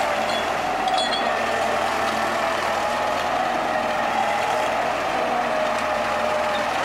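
Diesel engine of a DT-75 crawler tractor, a combine harvester's engine fitted in place of the original, running steadily as the tractor drives off.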